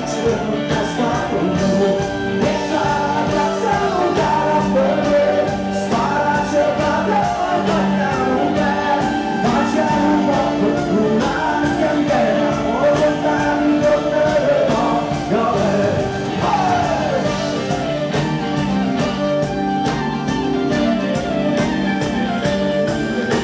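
Live folk-band music: singing over a steady beat on a frame drum, with accordion and guitar playing along.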